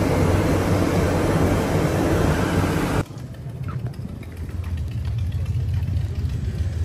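A loud rushing noise over a low rumble cuts off suddenly about three seconds in. It is followed by a steady, lower motor-vehicle engine hum that slowly grows louder.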